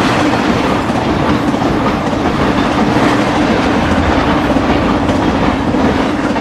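Intermodal freight train of flatcars carrying highway trailers rolling steadily past, wheels running on the rails.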